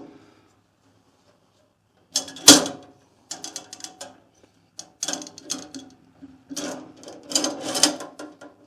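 Clanks, knocks and rattles of metal parts and tools being handled and moved on the bandsaw, with a loud knock about two and a half seconds in and clusters of rattling after it.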